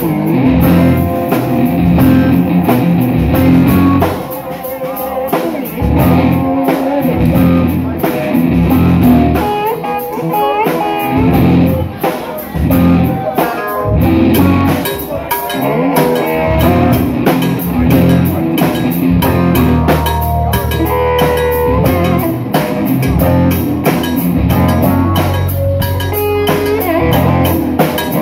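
Live rock band playing: guitar over a drum kit, with notes bending in pitch through the middle.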